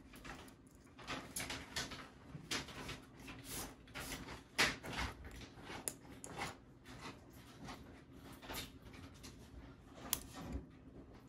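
Faint, irregular small clicks and scrapes of a steel artery clamp (hemostat) gripping the thin headshell lead wires and pushing their connectors onto the cartridge pins. The sharpest click comes about four and a half seconds in.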